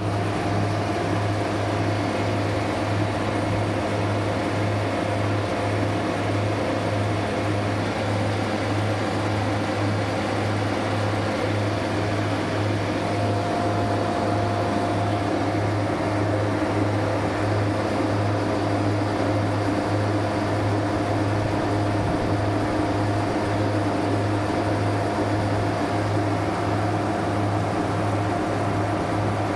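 Refrigeration equipment running with a steady low hum and an even fan-like whir, unchanging throughout.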